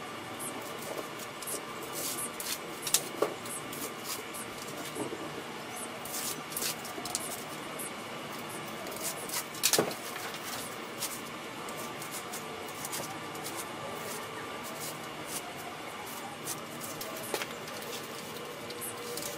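Cardboard being handled and cut by hand on a concrete floor: scattered scrapes, rustles and clicks, the sharpest about three seconds and ten seconds in, over a steady faint background hum.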